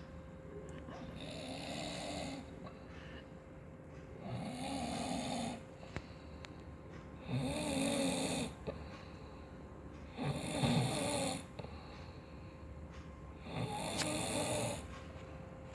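Someone snoring in a steady rhythm: five snores about three seconds apart, each with a wavering pitch.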